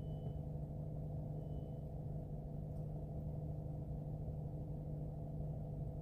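Steady low hum inside a car's cabin, the sound of the car sitting still with its engine or fan running.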